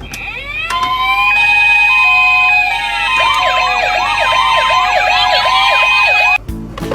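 Several ambulance sirens sound at once, overlapping. Held two-tone notes and rising wails come first, and fast repeating wails join from about the middle. They all cut off suddenly near the end.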